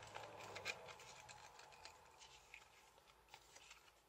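Faint rustling and light clicks of plastic packaging handled by hand as an acrylic keychain glued to its backing is worked loose. Densest in the first second, then only a few scattered ticks.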